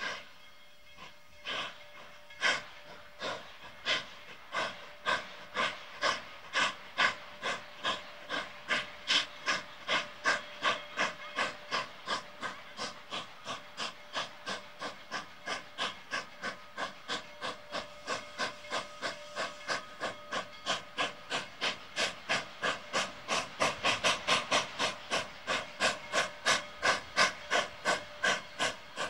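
Narrow-gauge K-37 Mikado steam locomotive No. 497 starting its train from a stand: exhaust chuffs come slowly at first and quicken steadily to about three a second, over a steady hiss of steam. The beats are loudest near the end as the engine draws close.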